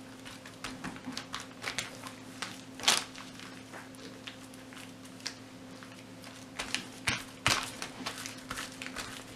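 Plastic vacuum-sealer bag crinkling and rustling as hands press and smooth mashed avocado flat inside it to push the air out, with scattered sharper crackles, the loudest about three seconds in and again around seven and a half seconds. A faint steady hum sits underneath.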